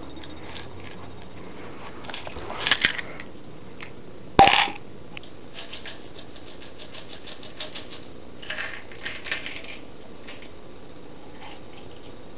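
A plastic pill bottle being handled: small hard pills rattling and clicking against the bottle. There is one sharp clack about four and a half seconds in, and scattered light clicks after it.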